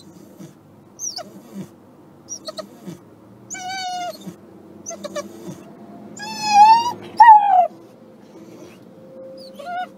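A dog whining: a few short squeaks, then longer, high, wavering whines. The loudest are a rising whine and a falling one about six to seven and a half seconds in.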